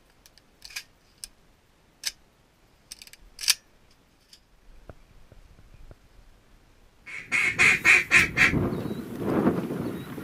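A few faint, scattered clicks and knocks, then about seven seconds in a loud, rapid run of duck quacks.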